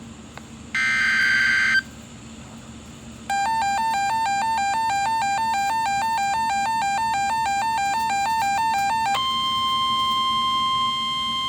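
Emergency Alert System signals on NOAA Weather Radio. About a second in comes a roughly one-second screech of digital SAME header data. After a short gap, a two-tone attention signal warbles rapidly between two pitches for about six seconds. Near nine seconds it gives way to the steady single-pitch 1050 Hz weather radio warning alarm tone.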